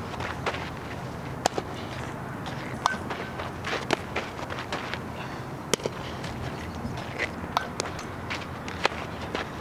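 A softball fielding drill heard live: sharp knocks and pops, about five of them a second or more apart, over steady background noise, with light footsteps in the infield dirt.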